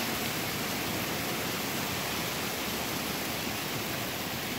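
Heavy sleet and ice pellets mixed with rain coming down hard onto pavement, a car and a hedge: a steady, even hiss.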